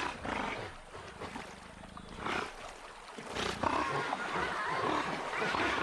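Giant otters in the river giving harsh alarm calls at a jaguar: a few separate bursts at first, then near-continuous calling from a little past halfway.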